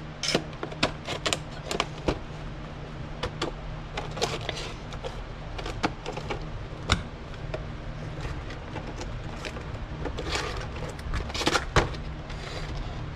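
Small scissors snipping and cutting into stiff retail packaging: an irregular scatter of sharp snips, clicks and crackles, busier toward the end, over a steady low fan hum.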